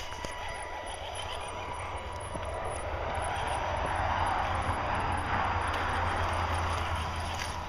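Axial SCX10 radio-controlled rock crawler's electric motor and gear drivetrain whirring as it climbs over rocks, growing louder through the middle and easing off near the end.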